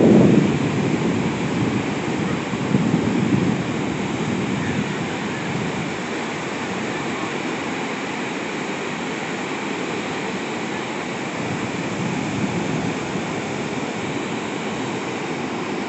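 Ocean surf washing onto a beach: a steady rush of waves, loudest at the start, with another swell about three seconds in and a smaller one near the end.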